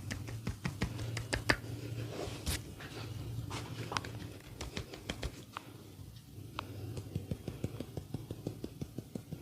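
Hands tapping and patting during a massage: scattered sharp taps at first, then a steady run of quick pats, about three a second, over a low steady hum.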